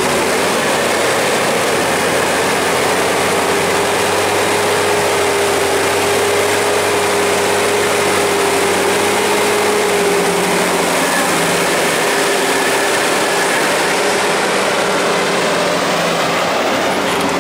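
Fendt 818 Vario tractor running steadily under load as it pulls a loaded Pöttinger Europrofi silage wagon through deep mud, a steady whine over a broad, even machine noise.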